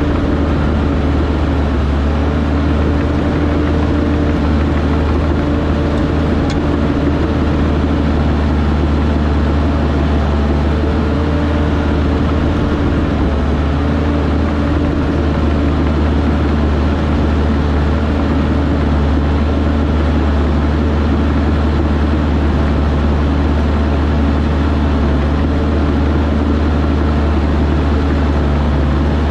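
Heavy earthmoving machine's diesel engine running steadily, a constant low drone with an even stack of engine tones that holds without revving up or down.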